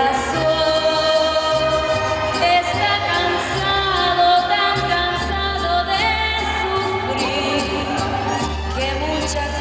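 A woman singing a song with held, wavering notes, accompanied live by a mariachi band: violins and guitars over a stepping bass line.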